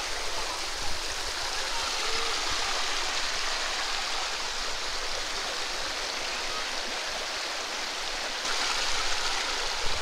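Shallow mountain stream rushing and splashing over rocks: a steady rush of water that grows a little louder near the end.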